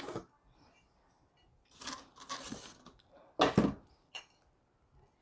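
A stoneware baking dish and its cardboard box being handled: rustling and scraping, with one louder knock about three and a half seconds in and a small click just after.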